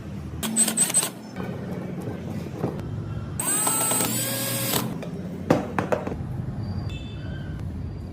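Workshop power tools running in short bursts with a high whine, over a low steady hum, with a sharp knock about five and a half seconds in.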